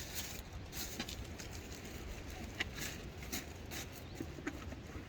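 Faint handling of packed clothes and fishing gear: scattered light clicks, knocks and rustles over a low steady rumble.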